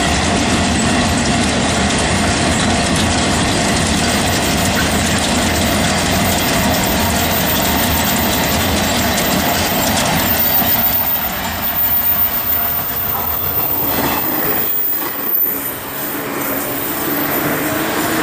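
Long freight train of two-axle Wamu 380000 covered wagons rolling past at speed, the wheels clattering steadily over the rail joints. The noise thins and dips briefly late on, then picks up again.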